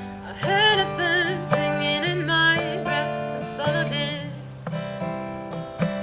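Background music: acoustic guitar strummed in chords, with a wavering melody line over it for the first four seconds or so.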